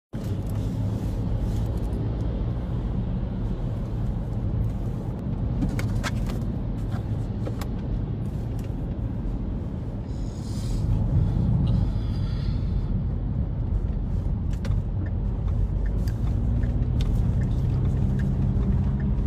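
Steady low rumble like a running vehicle's engine, with scattered light clicks.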